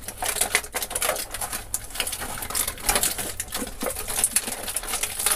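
Clear plastic toy packaging crinkling and crackling in the hands, with small clicks, as action figures are worked out of their plastic blister trays.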